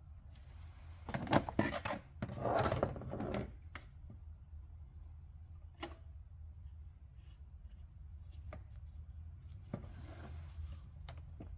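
Pliers working a PCV vacuum hose: two short bursts of scraping and rubbing about one and two and a half seconds in, then a few sharp single clicks spread through the rest, over a low steady hum.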